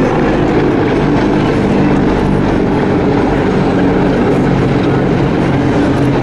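A pair of CH-53E Super Stallion heavy-lift helicopters flying past, their rotors and turbines making a loud, steady drone.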